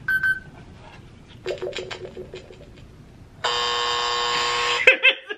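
Electronic lie detector game toy sounding its verdict on a spoken answer: a short high beep, a run of quick electronic tones, then a loud steady buzz lasting about a second and a half.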